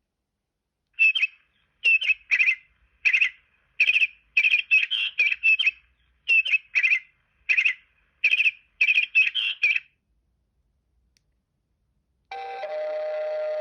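Alcatel OT 715 mobile phone ringtone made of bird-like chirps: a string of short chirps in uneven groups that stops about ten seconds in. Near the end the next ringtone begins, a steady held tone.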